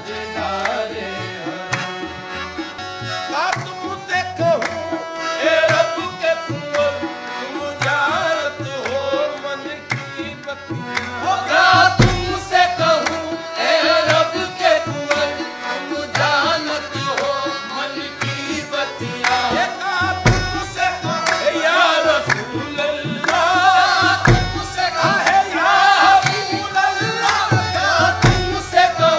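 Live qawwali: male voices singing a drawn-out devotional line over harmonium drones, with hand claps and drumming. Deep bass drum strokes land a few times in the second half.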